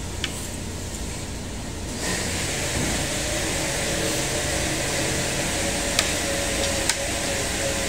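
Steady air-conditioning and ventilation noise in a restaurant dining room, growing louder about two seconds in. A few light clicks of chopsticks on dishes come through it.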